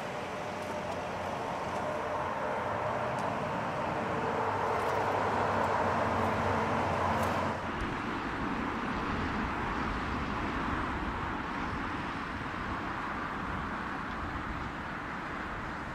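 Jet noise from a Kawasaki P-1 patrol aircraft's four turbofans. It grows steadily louder as the aircraft moves along the runway, then cuts off abruptly a little past halfway. A steadier, quieter turbofan hum follows as a P-1 comes in on final approach with its gear down.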